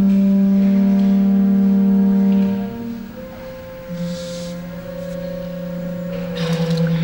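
Pipe organ holding long sustained chords. About two and a half seconds in the chord releases and the sound drops back, then a new lower drone with a higher held tone above it comes in and swells louder near the end.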